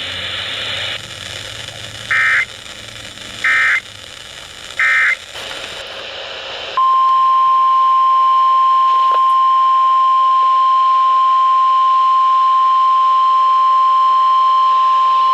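Three short bursts of Emergency Alert System digital data, marking the end of the previous warning, come over a hissing weather-radio feed. After a patch of static, NOAA Weather Radio's 1050 Hz warning alarm tone sounds: one steady, loud, high tone held for about nine seconds, announcing a new tornado warning.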